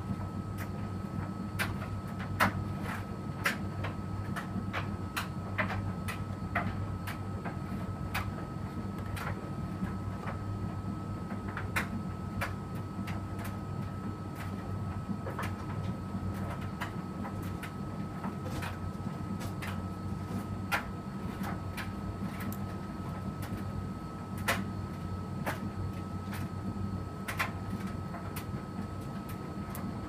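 Electrolux front-loading washing machine running a cotton wash: a steady low motor hum with a constant thin whine, and sharp irregular clicks and knocks from the drum, roughly one or two a second.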